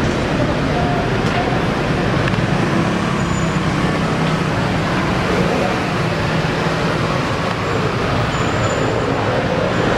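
Steady city street traffic noise, with engines running and a continuous low hum of vehicles.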